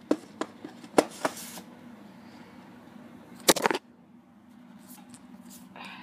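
VHS tapes and their cases being handled: a few sharp clacks and rustles, the loudest about three and a half seconds in, over a steady low hum.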